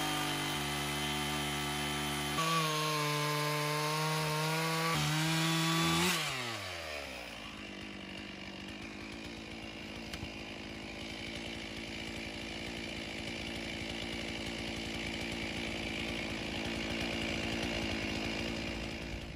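Gas chainsaw cutting through the end of a large log at full throttle, its pitch shifting as the cut loads the engine. About six seconds in the throttle is released and the engine winds down, then runs on quietly at idle.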